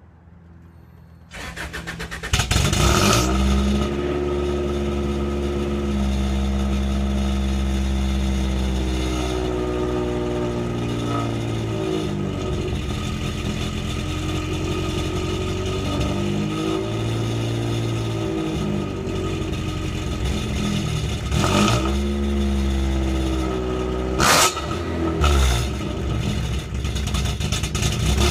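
Cold start of a Honda Civic hatchback with a straight-piped eBay exhaust. The starter cranks for about a second, the engine catches with a brief flare, then it idles raspy and unevenly, its pitch wandering up and down every few seconds. There are a couple of short, sharp louder bursts near the end. The owner calls the idle bad and suspects the ignition timing is off.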